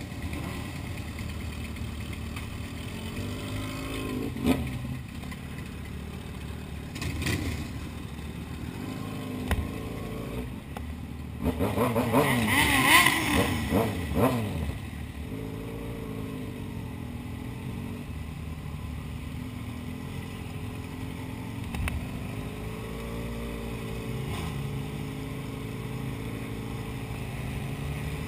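Sport motorcycle engine running at low road speed. A burst of hard revving comes about twelve seconds in and rises and falls in pitch over a few seconds, with shorter throttle blips around four and seven seconds.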